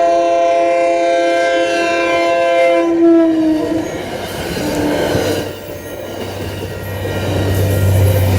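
Train horn on a Kawasaki cab car sounding one long blast of a steady multi-note chord, its pitch dropping as the car passes about three and a half seconds in. Then the train rushes by with the noise of wheels on rail, and a low hum grows louder near the end.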